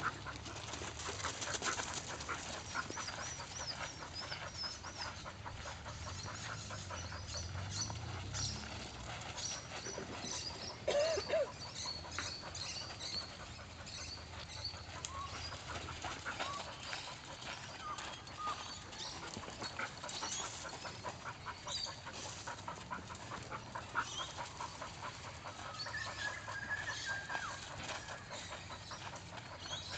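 Working kelpie panting and whining while moving sheep, over scuffing footsteps on gravel; a short, louder call about eleven seconds in.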